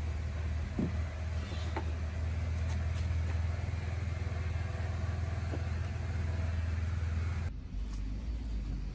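A steady, low, engine-like rumble with a few faint clicks and knocks. About seven and a half seconds in, it cuts to a fainter, deeper rumble.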